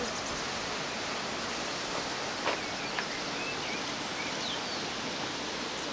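Steady rushing of the Ayun stream's water below its waterfall, with a few faint bird chirps and two soft clicks midway.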